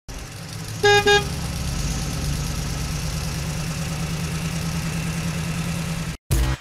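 Big-truck engine idling with a steady low rumble, as a toy truck sound effect, with two short horn honks about a second in. The rumble cuts off abruptly near the end.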